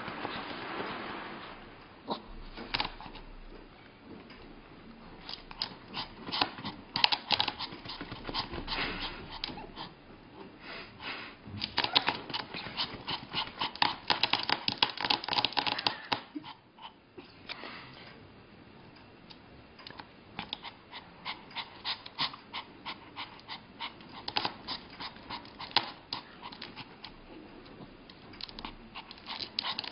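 A Pomeranian's claws tapping and scrabbling on a glass tabletop in bursts of quick clicks as it paws at the table, with the dog panting.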